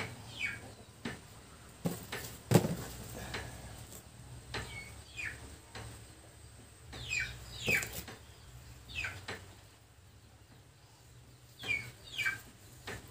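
Small metal clicks and taps of a valve and its spring parts being fitted into a motorcycle cylinder head, with one sharper knock about two and a half seconds in. A bird calls in short falling chirps, usually in pairs, about five times.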